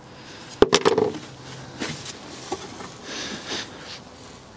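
Broken pieces of a plastic car boot floor being handled and pulled at: a sharp click about half a second in, then scattered light knocks and rustling of plastic.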